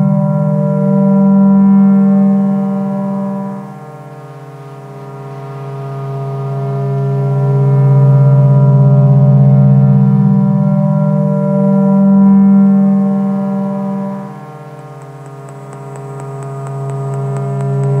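Drone synthesizer (a drone box run through Korg Kaoss Pad effects) holding a low, many-toned droning chord. It swells and fades slowly, dropping away twice, about four seconds in and again near the end, then building back up.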